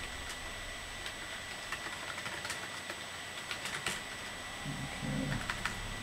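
Scattered keystrokes on a computer keyboard as login details are typed in, over a steady hiss with a thin high whine.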